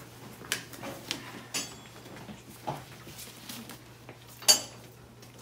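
Handling noises from a hospital bed and a birthing-simulator manikin: a few scattered knocks and clatters over a low hum, the sharpest one near the end.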